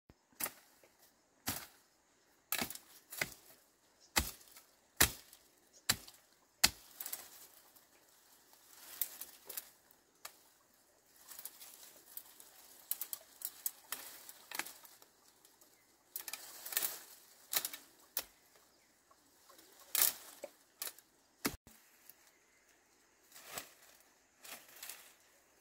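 A garden hoe striking and scraping hard ground: a run of sharp knocks, about one a second at first, then irregular with scraping between.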